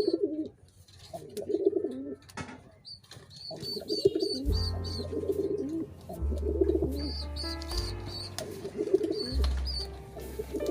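Pigeons cooing: low, rolling coos repeated every second or two, with high short chirps in quick runs from about three seconds in. A low steady hum comes in about halfway and shifts pitch a few times.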